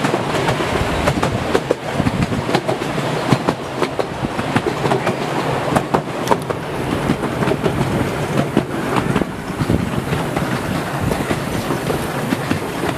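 Miniature railway passenger carriages running along 7¼-inch gauge track, heard from on board: a steady rumble from the wheels with irregular clicks as they pass over rail joints.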